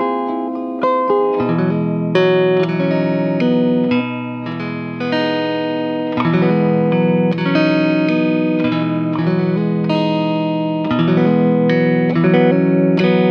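Electric guitar picking a melody through an Empress Compressor MkII pedal that is actively compressing, each plucked note fading away. Held low bass notes come in about a second and a half in and carry on underneath.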